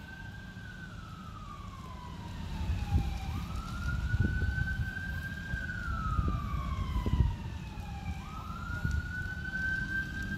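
Fire apparatus siren on wail, sweeping quickly up, holding, then gliding slowly down, in cycles about five seconds long, over a steady low rumble.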